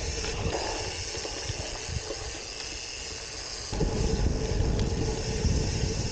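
Gravel bike tyres rolling over a leaf-covered dirt trail, a steady hiss and crunch with wind on the microphone. A little past halfway the sound switches abruptly to a louder rumble of tyres on rough, cracked pavement with heavier wind noise.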